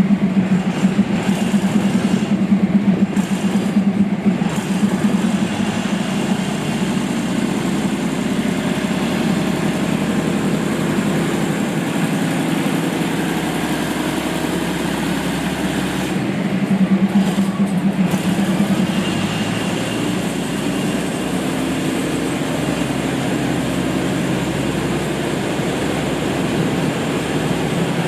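Train running: a steady mechanical rumble with a strong low hum, slightly louder in the first few seconds and again around the middle.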